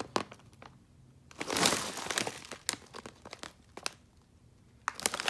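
Snack packaging crinkling as it is handled, in a few short bursts, the loudest about a second and a half in, with scattered light clicks and taps between them.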